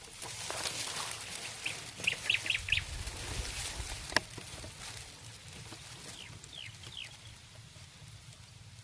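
Small birds chirping in short, quick falling notes: a run of about five a couple of seconds in, and three or four more about six seconds in. A single sharp click about four seconds in.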